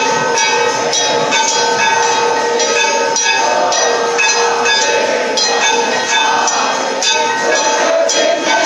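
Temple bells and clanging metal percussion ringing continuously for the aarti lamp offering, with rapid regular strikes over sustained bell tones.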